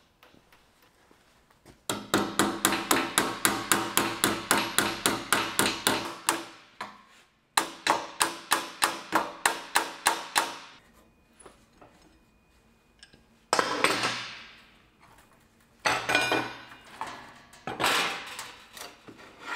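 Hammer blows on the edge of a sheet-steel floor-pan panel clamped over a hardwood die, bending the lip over a little at a time with many small blows: two fast runs of about five light strikes a second, then a few separate louder clattering noises about a second long in the second half.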